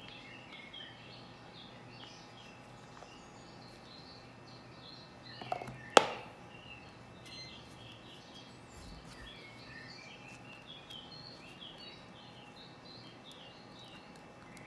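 Small birds chirping lightly and repeatedly in the background, with one sharp click about six seconds in as the card tin and deck are handled.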